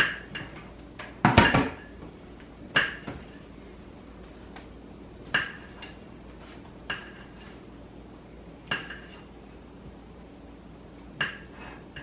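Knife cutting Polish sausage, the blade striking the hard surface beneath with short ringing clinks, about eight spaced irregularly a second or two apart. The loudest is a heavier knock about one and a half seconds in.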